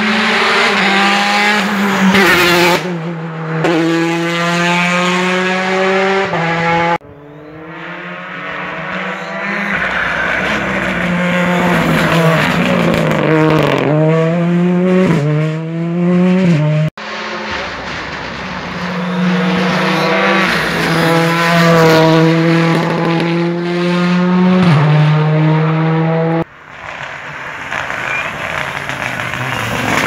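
Rally cars at full throttle on a tarmac stage: the engine revs climb high and drop back in steps at each upshift. Near the middle the revs dip and jump back quickly several times. The engine sound changes abruptly three times, about 7, 17 and 26 seconds in, as one car gives way to the next.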